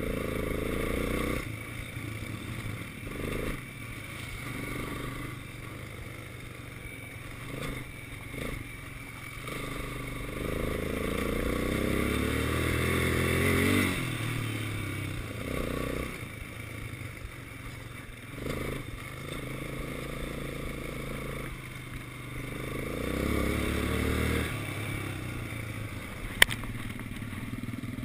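Quad bike engine running under way on a dirt track, its revs rising and falling as the throttle opens and closes, with a sharp click near the end.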